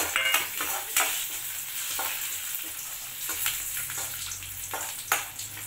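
Cashews, almonds, raisins and coconut pieces sizzling in hot ghee in an aluminium kadai, stirred with a metal ladle that scrapes and knocks against the pan every second or so.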